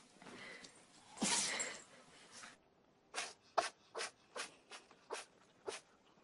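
An animal sneezing: one longer, louder sneeze about a second in, then a run of quick short sneezes, about two a second.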